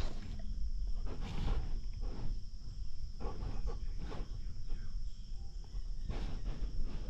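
A blood-trailing dog's heavy breathing, picked up close by the camera on its own collar: loud breaths about once a second, typical of a dog winded after a long run. A steady high insect drone runs beneath.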